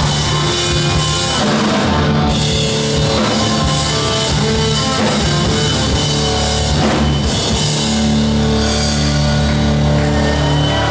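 Rock music with drum kit and guitar.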